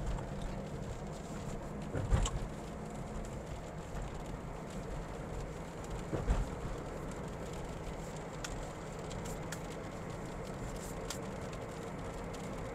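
A car driving on the highway: steady engine and road noise, with two brief thumps about two and six seconds in.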